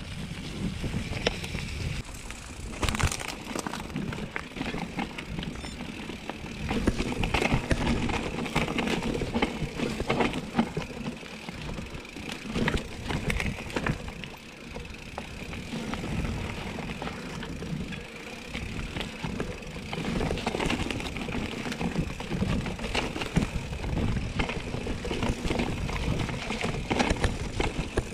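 Bicycle riding over a rough dirt trail: steady tyre noise on dirt and stones, with many short rattles and knocks as it goes over bumps.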